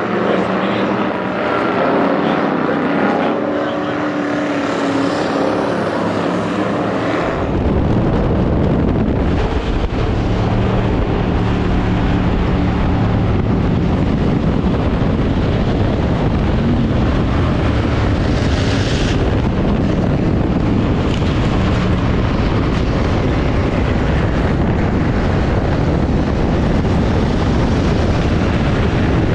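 Ford Crown Victoria stock cars racing on a dirt oval. First the engines of passing cars are heard from trackside. About seven seconds in the sound switches to the steady, loud rumble of a Crown Vic's V8 under racing load, heard inside the stripped, caged cabin with road and wind noise.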